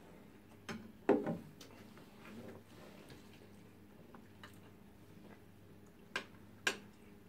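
Metal cutlery clicking and scraping against a plate of rice: a few sharp clicks about a second in and two more near the end, over a faint steady low hum.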